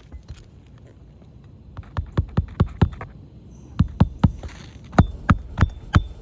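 Hammer driving roofing nails into a replacement asphalt shingle: three runs of sharp strikes, about four a second, starting about two seconds in.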